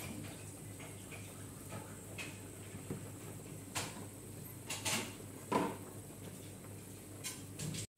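Soy-sauce beef broth simmering in an aluminium wok, with scattered soft pops and ticks over a low steady background hum. A few louder pops come about four to six seconds in.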